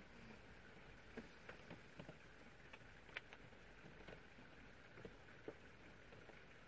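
Near silence with faint, irregular taps of rain dripping on the campervan, scattered through.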